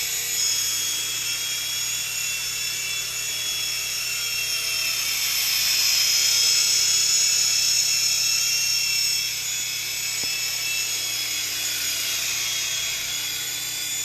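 Syma S5 mini RC helicopter in flight, its small electric motors and coaxial rotors making a steady high-pitched whine. The whine swells louder for a few seconds in the middle, then eases back.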